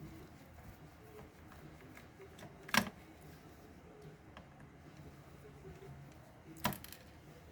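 Two sharp clicks about four seconds apart, from small parts or tools being handled during the disassembly of a robot's torso, over a faint low hum.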